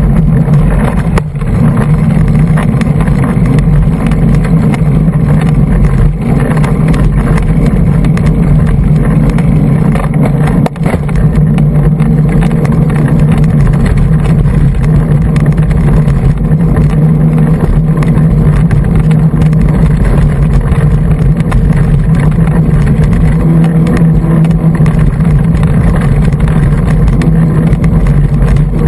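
Constant loud rumble and rattle of wind and trail vibration on a GoPro Hero2 mounted on a hardtail mountain bike riding singletrack.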